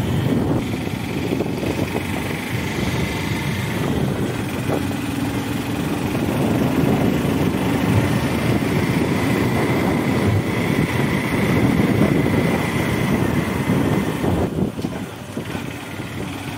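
Motorcycle engine running steadily while riding along a rough rural track.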